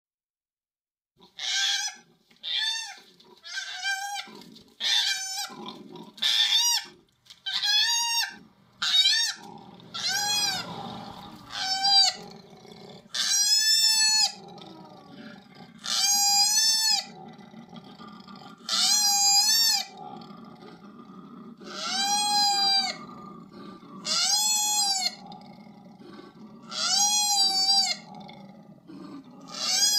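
Koala crying in distress after being kicked out of its tree: a run of loud, high, wailing cries, short and about once a second at first, then longer drawn-out cries every two to three seconds.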